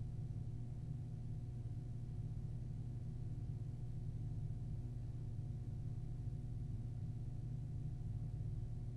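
Room tone: a steady low hum, unchanging throughout, with no other sounds.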